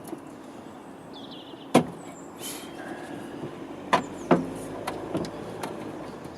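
Sharp knocks and clicks of hard parts being handled on a car while a light unit is worked loose: one loud knock about two seconds in, two more close together about four seconds in, and a few fainter ticks.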